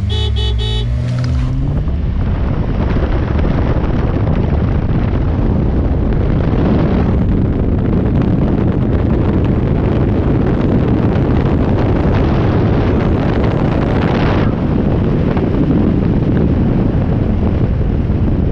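A car accelerating hard from a rolling start, its engine note rising for the first second and a half. Then a loud, steady rush of wind on the microphone and tyre noise at racing speed on a wet road.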